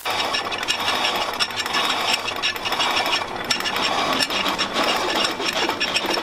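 Milling cutter on a Brown & Sharpe No. 2 horizontal mill facing the flange of a cast-iron exhaust manifold, its teeth chipping the iron in a steady, dense run of rapid ticks. The flange is being milled flat to make a sealing surface.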